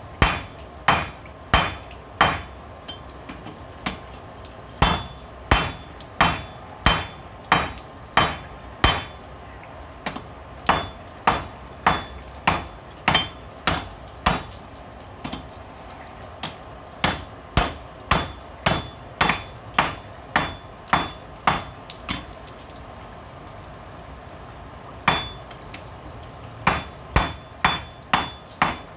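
Hand hammer striking a hot railroad spike on an anvil in steady runs of blows, a little under two a second, each with a short metallic ring. The runs break off for short pauses, the longest a few seconds about two-thirds of the way through. The spike is being drawn out thinner and longer.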